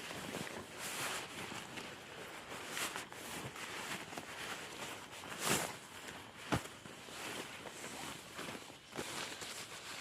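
Footsteps of a person walking: an irregular run of scuffs on the ground, with two sharper clicks a little past the middle.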